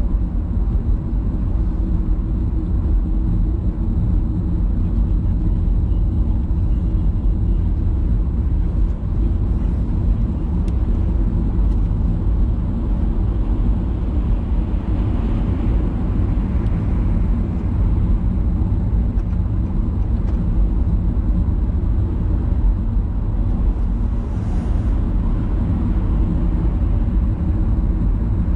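Steady low rumble of a moving vehicle, running on without change.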